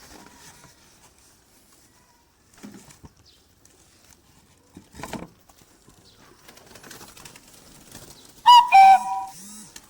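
Pigeon being handled after capture: a few knocks and rustles, then near the end a loud, short, high call with a couple of low coos.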